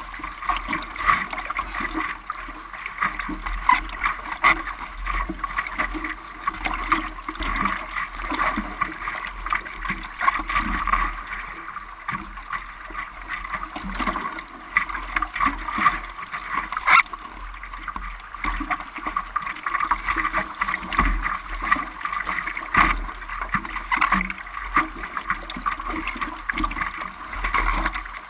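Ocean water splashing and washing in the surf, an irregular run of splashes with no let-up.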